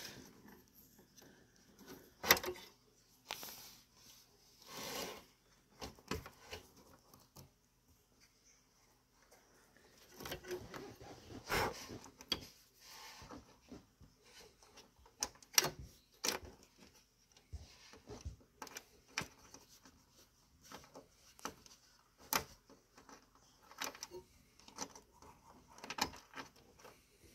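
Sporadic clicks, knocks and rustling of hands working parts loose inside a desktop computer case, with a few sharper clacks of metal and plastic.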